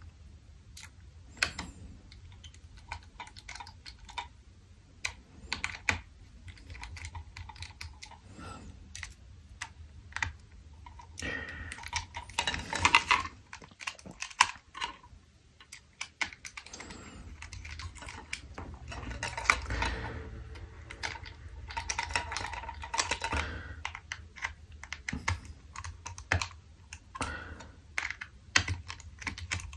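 Scattered small clicks and light scrapes of a Nest thermostat's plastic and metal housing being handled and worked with a precision screwdriver, with busier stretches of scraping about a third of the way in and again past the middle.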